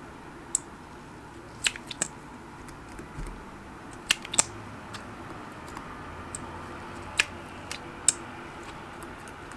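About seven irregular sharp clicks and taps from small objects being handled by hand, over steady background noise with a faint low hum.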